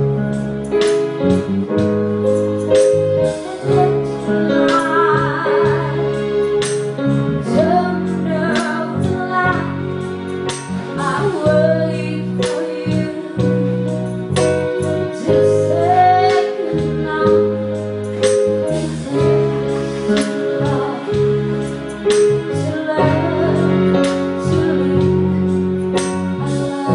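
Live lounge-band music: a woman singing with vibrato over sustained electric keyboard chords and a steady beat.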